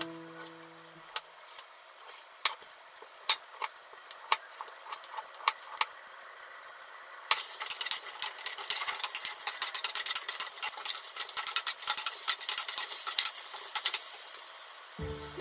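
Knife slicing a tomato on a mango-wood cutting board, a string of sharp taps about one or two a second. About seven seconds in, sliced eggplant sizzles in a hot frying pan while a wooden spatula stirs it, clacking quickly against the pan.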